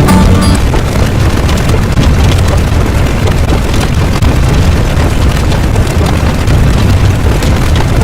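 Loud, steady rumbling noise, heaviest in the bass, with no rhythm or pitch. The tail of a held musical chord cuts off about half a second in.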